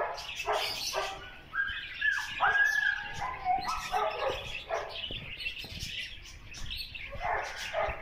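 Parrots calling: a jumble of short squawks and chirps, with a few held whistles between about one and a half and three seconds in.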